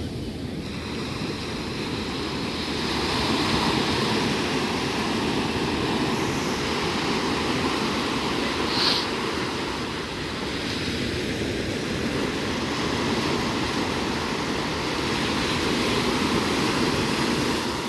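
Small ocean waves breaking and washing up a sandy beach: a steady rush of surf that swells and ebbs every few seconds. A brief sharp click about halfway through.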